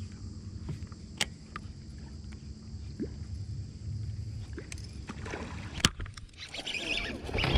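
A largemouth bass strikes a topwater lure with a splash about six seconds in, followed by water splashing and reel and rod sounds as the fish is brought in, over a steady low rumble.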